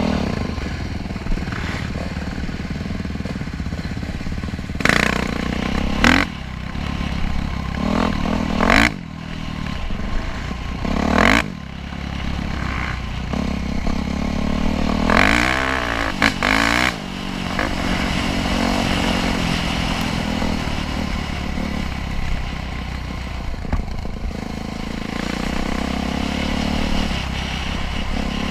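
Off-road dirt bike engine running steadily as it is ridden, its revs rising and falling with the throttle. A few short, loud rushes of noise break in, mostly in the first two-thirds.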